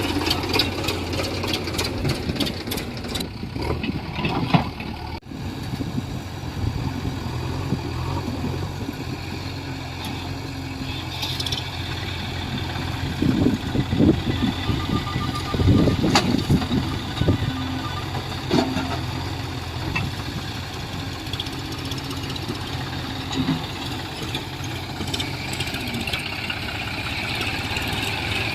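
Diesel engines of a backhoe loader and tractor running steadily, with louder rumbling surges between about 13 and 17 seconds in.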